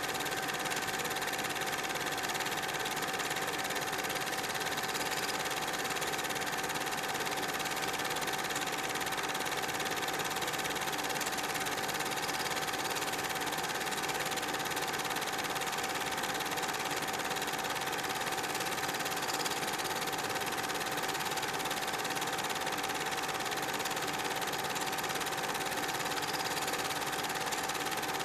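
Super 8 film projector running: a steady mechanical whir and clatter with a constant whine, unchanging throughout.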